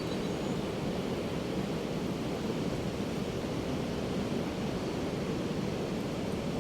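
Ocean surf on a beach: a steady, even wash of breaking waves.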